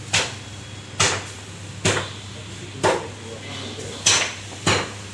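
Meat cleaver chopping on a wooden chopping block: six sharp strikes, a little under a second apart.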